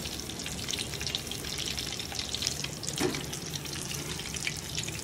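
Breadcrumb-coated chicken nuggets deep-frying in hot oil: a steady sizzle full of fine crackles, the nuggets fried crisp on both sides.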